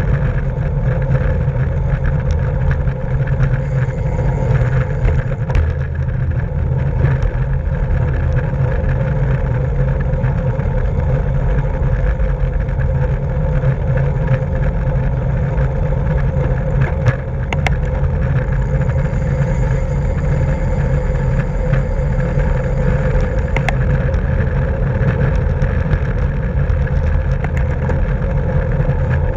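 Steady rush of wind and road noise from a road bike moving at racing speed in a criterium, with a few faint clicks.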